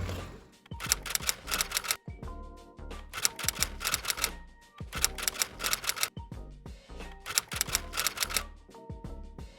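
Background music with a steady beat: a bass line under crisp, clicking percussion in a repeating pattern.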